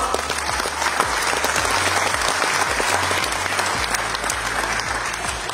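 Audience applauding, the clapping slowly dying down near the end.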